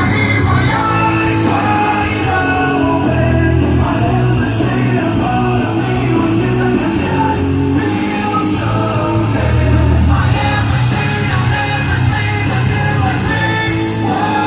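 Rock band playing live with a singer: a loud, dense mix of vocals, heavy bass and drums.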